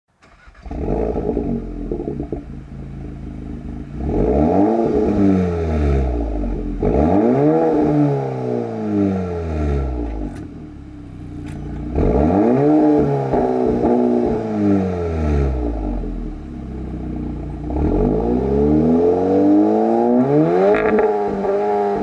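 2020 VW T-Roc R's 2.0-litre turbocharged four-cylinder starting up and idling, then revved four times. Each rev rises quickly and falls back to idle, with a few sharp pops from the quad exhaust as the revs drop.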